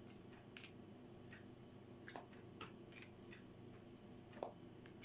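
Faint, scattered soft clicks and taps of tarot cards being handled and laid out on a table, about half a dozen over a few seconds.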